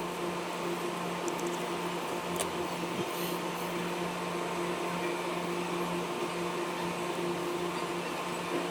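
A small fan or blower motor runs steadily, giving a low hum with an airy hiss, with a few faint light clicks.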